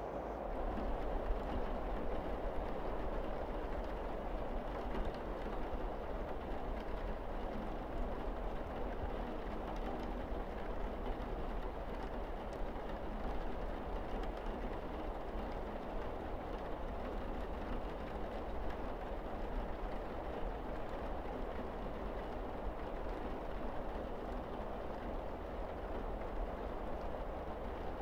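Steady rain pouring on a roof and windows: an even hiss with faint scattered drop ticks over a low rumble.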